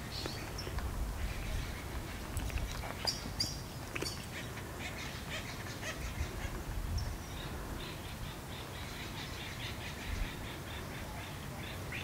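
Woodpeckers giving short squawky calls and pecking at tree bark, with a quick run of taps between about five and eight seconds in. A low rumble lies underneath.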